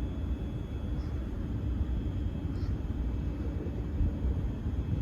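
Southern Class 377 electric multiple unit running into the platform, a steady low rumble.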